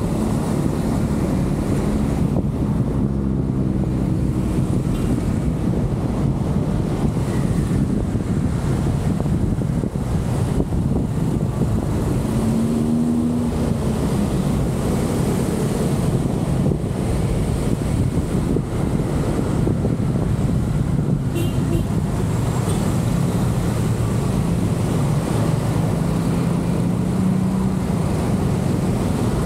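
Steady low rumble of a car being driven: road and engine noise with a faint hum that wavers a little in pitch.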